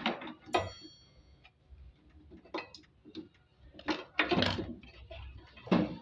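Scattered metallic clicks and knocks of hand tools and parts on a Samsung top-load washing machine during disassembly for drain motor removal; one clink about half a second in rings briefly.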